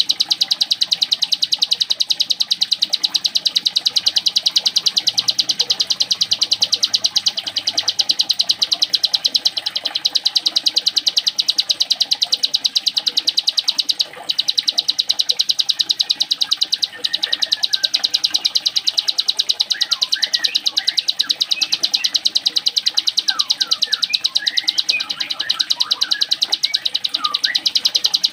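A cigun songbird in full 'ngebren' song: a continuous, very fast, high-pitched rattling trill likened to a sewing machine, broken only by two short pauses. Other short chirps join in the second half.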